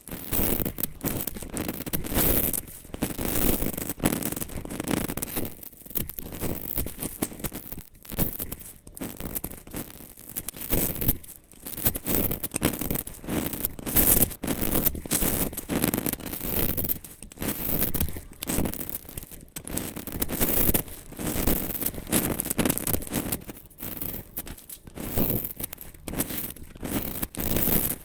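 Crisp scraping and crackling strokes of a knife cutting into dry soap, repeated about once or twice a second with short pauses between.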